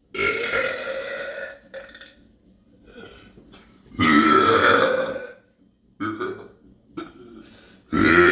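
A person burping loudly and repeatedly: a long burp at the start, an even louder long one about four seconds in, then a run of shorter burps near the end.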